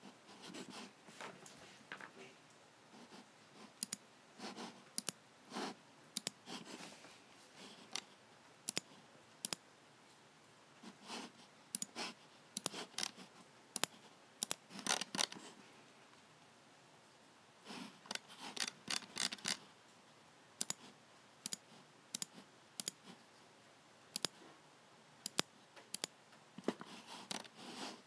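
Logicool (Logitech) G7 computer mouse buttons clicking at an irregular pace, sometimes in quick pairs or clusters, with softer, longer noises among the clicks and a pause of a second or two about halfway through.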